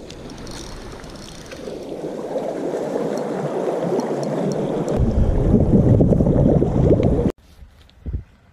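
Water sloshing and gurgling among rocks at the shoreline, growing louder, then cut off abruptly about seven seconds in.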